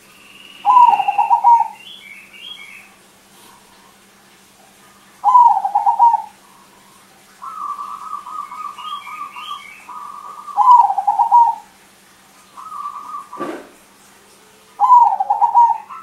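Caged crossbred zebra dove (perkutut) cooing its song. Four loud phrases of about a second each are made of quick repeated notes, with softer, longer rolling coos between them. A single sharp click comes near the end.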